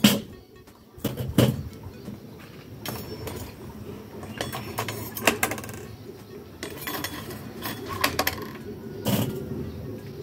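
Pieces of charcoal being set down on the metal lid of the cake pan to give heat from above, a string of irregular metallic clinks and knocks.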